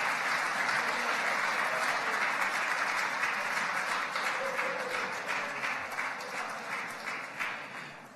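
Audience applauding, the clapping thinning out and fading over the last few seconds.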